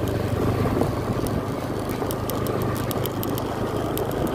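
A vehicle's engine running steadily while on the move, with road and wind noise and scattered faint clicks.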